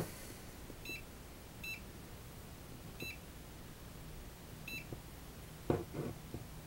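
Handheld RF meter giving four short electronic beeps, irregularly spaced over the first five seconds, followed by a few soft handling knocks near the end.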